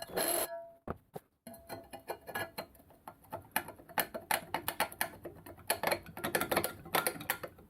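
A short scraping burst at the start, then a long run of small, irregular metallic clicks and clinks as the hydraulic quick-coupling fittings are tightened into the steel bracket.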